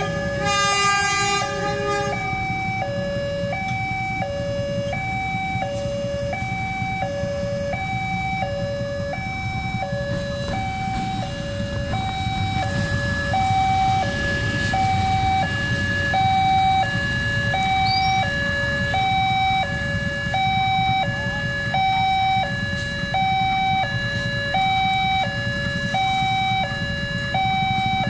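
A railway level-crossing warning alarm sounds steadily, a two-tone electronic signal switching back and forth between a higher and a lower note, warning that a train is crossing. A locomotive's air horn blows during the first two seconds, and the low rumble of the passing locomotive swells in the middle.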